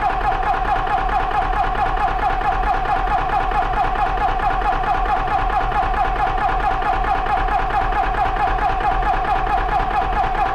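Benjamin Traveler 4500 PSI portable PCP air compressor running steadily under load with a fast, even pulsing hum, filling an air rifle as the pressure climbs past about 2,600 PSI. It is staying cool.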